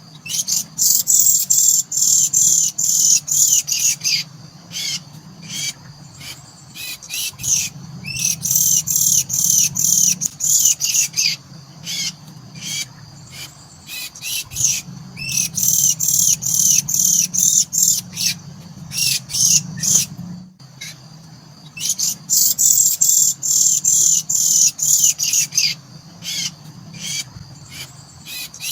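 Javan mynas in the nest chirping rapidly and high-pitched. The chirps come in bouts of three to four seconds that repeat about every seven seconds, with quieter pauses between them.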